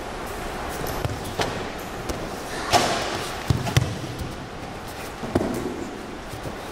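Thuds and slaps of an aikido partner being thrown and breakfalling onto a padded gym mat, several times. The loudest lands a little under three seconds in, followed by two sharp ones in quick succession and another later.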